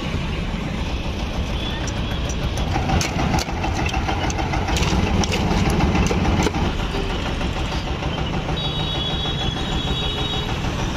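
Engine of a motorised sugarcane juice cart running steadily, with a run of sharp knocks a few seconds in as a knife chops ice in a steel bowl.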